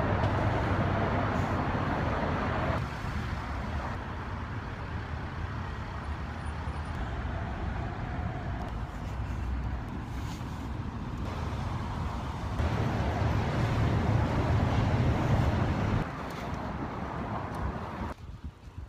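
Steady rush of city traffic noise and wind on the microphone, heard from a bicycle riding along a street. It is louder for the first three seconds and again from about twelve to sixteen seconds, and drops away near the end.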